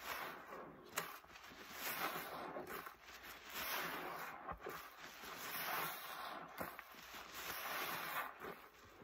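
A sponge loaded with dry paste squeezed over and over in soapy rinse water, wet squelching with the crackle of thick suds. It swells with each of several long squeezes, with a few sharp pops among them.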